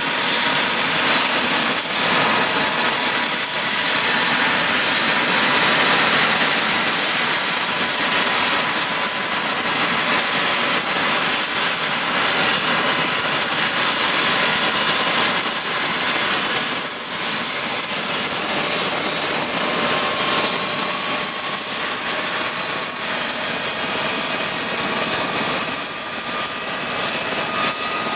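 French Army Gazelle helicopter's Turbomeca Astazou turboshaft running on the ground with the rotor turning. A loud, steady turbine rush carries a high whine that rises slowly in pitch.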